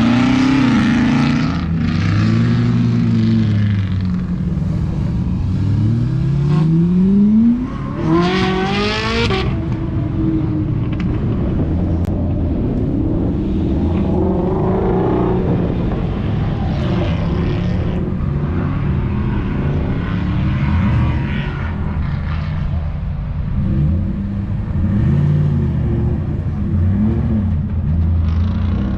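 Several performance car engines running and being revved; about six seconds in one engine climbs steadily in pitch to a loud high-revving peak, then drops back. Other engines idle and rise and fall in shorter revs through the rest.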